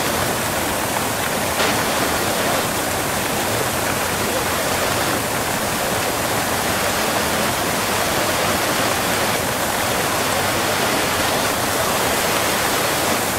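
Waterfall close up: a steady, dense rush of falling water, with a single brief click about a second and a half in.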